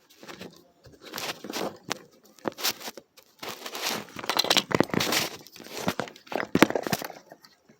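Irregular rustling and crinkling with a few sharp knocks, in bursts of a second or so.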